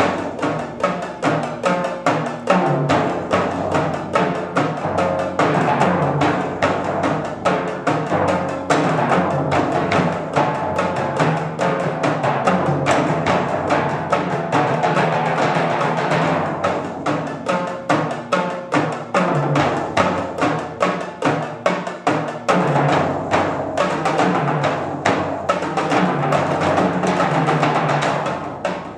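Percussion quartet of bongos, timbales, snare drum, concert toms, bass drum and timpani playing a fast, continuous drumming passage, with pitched timpani notes underneath the strokes.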